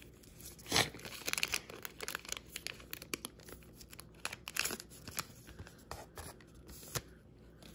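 Foil wrapper of a Topps Archives baseball card pack being torn open by hand, crinkling and crackling in a quick run of sharp rips.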